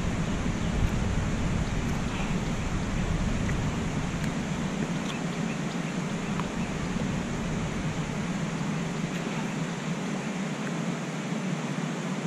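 Steady rushing noise outdoors. Low wind rumble on the microphone is heavy at first and drops away about five seconds in, leaving an even hiss.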